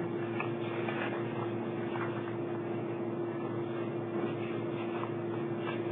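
Steady room tone: a constant electrical hum over even background hiss, with a few faint brief rustles.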